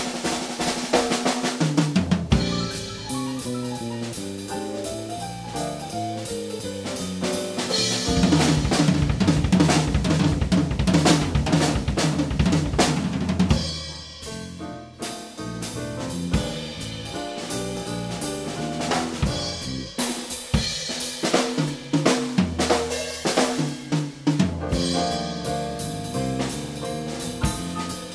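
A live band plays an instrumental number on drum kit, electric guitar and keyboards, with the drums to the fore. The playing is busiest and loudest around the middle, then thins out briefly for a moment before picking up again.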